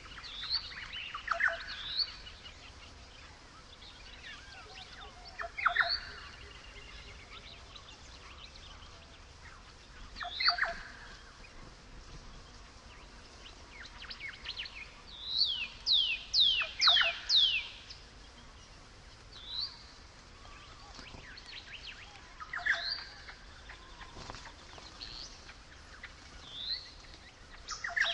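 Birds calling: loud, sharp whistled calls that sweep steeply down in pitch come every few seconds, with a quick run of about six falling notes in the middle, and short rising chirps between them over a faint steady hiss.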